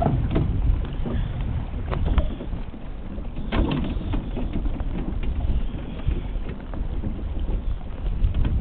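Wind buffeting a small camera microphone: an uneven low rumble that swells and eases, with a few short clicks.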